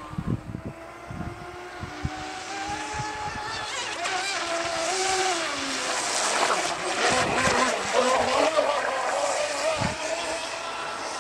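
Radio-controlled speedboat running at speed, its motor whine wavering up and down in pitch and loudest about two-thirds through, with the hiss of spray off the hull. A few low thumps near the start.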